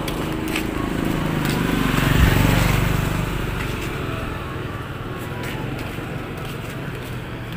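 Motorcycle riding past on the road, its engine growing louder to a peak about two seconds in and then fading away.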